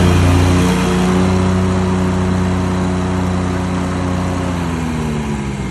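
Wright Stander ZK stand-on zero-turn mower's engine running under load as it mows. Its pitch falls steadily over the last second and a half as the mower slows down.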